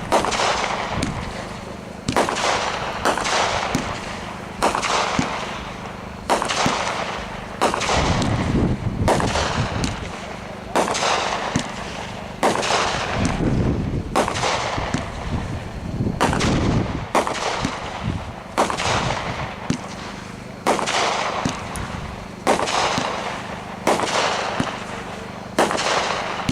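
World Class "Just Hanging" 25-shot consumer fireworks cake firing in steady succession, about one shot a second, each a sharp bang followed by a fading hiss-like tail.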